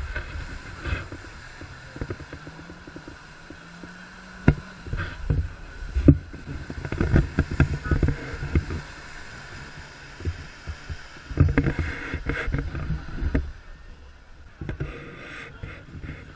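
Small 4x4's engine running under load and revving in repeated surges as it ploughs through a deep mud pool, with thick mud and water churning around the wheels. A few sharp knocks come a few seconds in.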